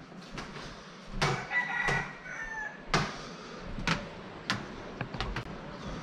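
A rooster crowing, held for about a second starting around a second and a half in, with several sharp knocks scattered through.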